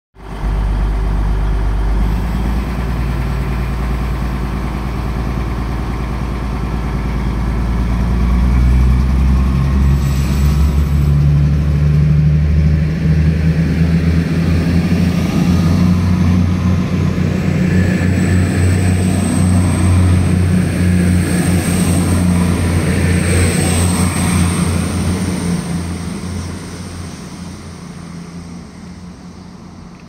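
Class 222 Meridian diesel multiple unit departing at full throttle: its underfloor Cummins QSK19 diesel engines run and rev up, the first car's engine slightly rattly. A high turbocharger whistle rises from about halfway through, and the sound fades near the end as the train pulls away.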